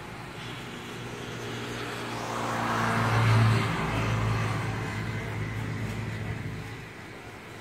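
A motor vehicle passing by: a steady engine hum with tyre noise swells to a peak about three seconds in, then fades away.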